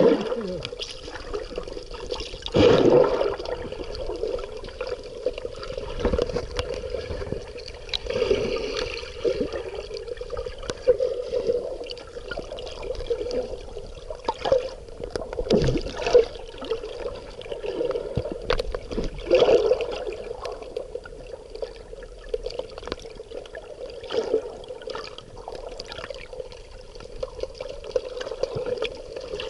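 Sea water sloshing and gurgling, swelling in surges every few seconds, with occasional sharp clicks.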